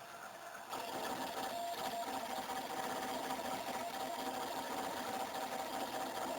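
Stepper motors of a Colibri-CNC contact-probe 3D scanner driving the probe along an axis. A pulsing motor whine starts just under a second in and runs steadily.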